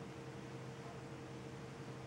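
Steady background hiss with a low, constant hum: room tone, with no distinct sound event.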